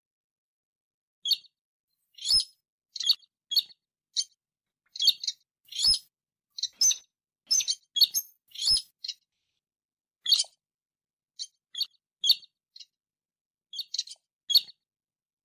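White-browed crake calling: about two dozen short, sharp, high notes in uneven bursts of single notes, pairs and quick runs, busiest in the middle and sparser towards the end.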